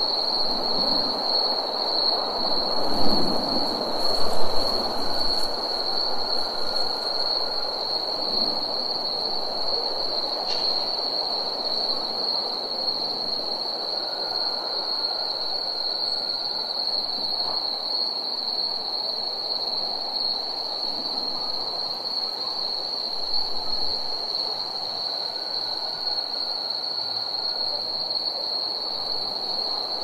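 Night insects trilling: one unbroken high-pitched trill over a steady rushing background noise, with a fainter, lower trill coming in three times for a second or two.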